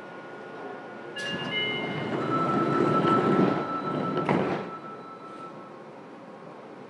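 Running noise heard inside a Fukuoka City Subway 2000-series car under way: a steady rumble with a faint high whine. About a second in, a sharp knock opens a louder rush with several high steady whines that lasts about three seconds, ends with another knock, and drops back to the steady running sound.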